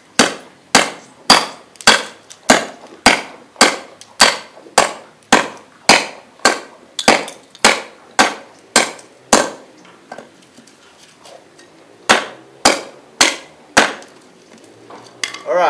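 Siddha khukuri blade chopping into a weathered hardwood log: a steady run of sharp strikes, nearly two a second, for about nine seconds, then a short pause and four more strikes. The edge is biting in and cutting wood cleanly rather than smashing it.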